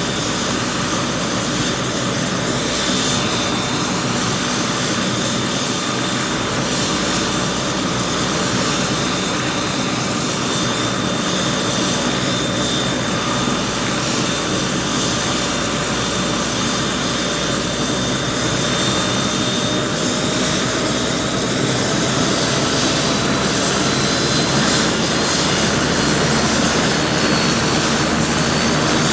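Helicopter running steadily: a dense rush of engine and rotor noise with a high turbine whine, the whine edging slightly higher in pitch in the second half.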